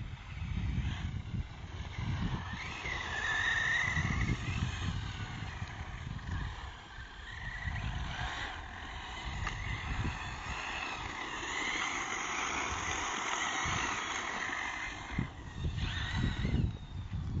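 Losi 8ight RC buggy's brushless electric motor (Neu 1512) whining as it is driven hard, the pitch rising and falling repeatedly with throttle, over a low uneven rumble.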